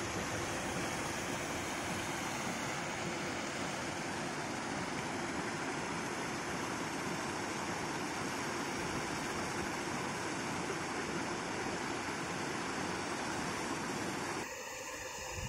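2 HP paddlewheel aerators churning shrimp-pond water: a steady rushing splash with a faint steady hum underneath. The rushing drops off abruptly near the end.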